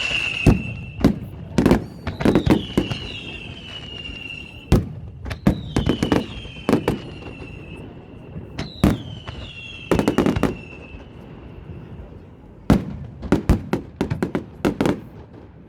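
Fireworks display going off: a rapid string of sharp bangs and cracks, with several whistling shells, each a falling whistle lasting a second or two, in the first eleven seconds.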